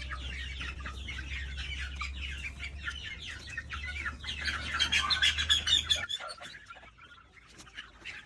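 A crowd of chicks peeping together, a dense chorus of short falling cheeps. About six seconds in, the chorus thins to a few scattered peeps and a low steady hum under it stops.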